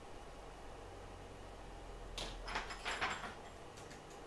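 Low steady hum, with a short cluster of light scraping and tapping sounds about two to three seconds in, from tools worked against the circuit board during soldering of a phone's charging port.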